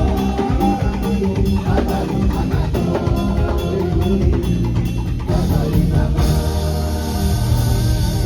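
Band music with a drum kit keeping a steady beat under bass and keyboard lines; the texture changes about six seconds in.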